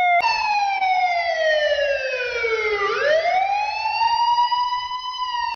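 Police siren wail: one slow sweep that falls in pitch for about three seconds, then rises back up and holds high until it stops abruptly.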